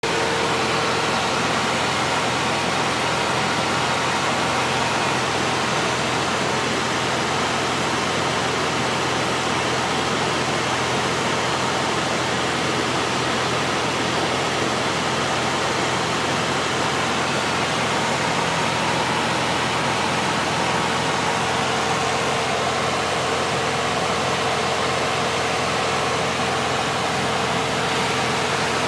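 Cabin noise of a Cessna 177RG Cardinal in flight: the 200 hp Lycoming IO-360 four-cylinder engine and propeller drone steadily under a heavy wash of airflow noise, heard from inside the cockpit.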